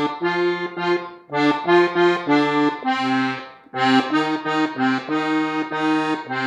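Gabbanelli diatonic button accordion playing a melodic passage on the treble buttons, a quick run of short chordal notes with brief breaks about a second in and near four seconds.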